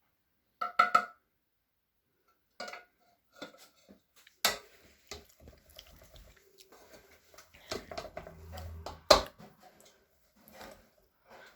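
Kitchen clatter of dishes, pots and utensils being handled and set down. There is a ringing clink about a second in, and sharp knocks about four and a half and nine seconds in.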